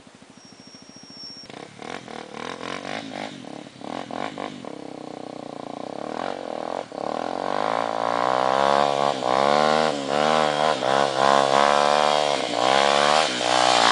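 Honda trail bike's single-cylinder four-stroke engine climbing a steep bare granite slope, revving up and down as the rider works the throttle. It comes in faintly about a second and a half in and grows steadily louder as the bike approaches.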